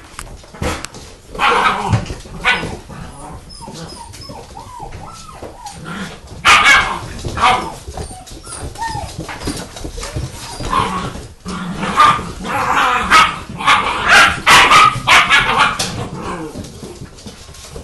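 A litter of German shepherd puppies play-fighting, barking and yipping. There is a burst of barks about a second and a half in, another around six to eight seconds in, and the loudest, densest run of barking from about twelve to sixteen seconds in.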